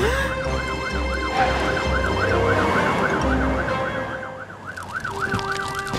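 Cartoon fire engine siren wailing, its pitch sweeping up and down quickly over and over, with background music underneath.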